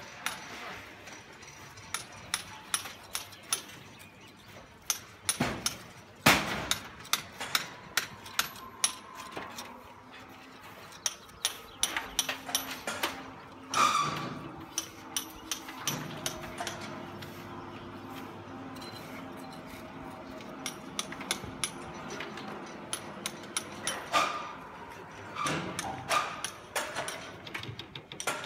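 Hammer blows on a building site, struck irregularly, often several a second, with short pauses and a few sharper, louder strikes. A steady low hum comes in for a stretch in the middle.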